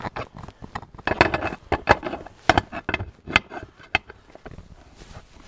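Irregular metallic clicks and knocks of a combination wrench and an Allen wrench working a new nylon locking nut onto the adjuster screw of a Harley Sportster primary chain tensioner. The louder clicks come at uneven intervals, several to a second.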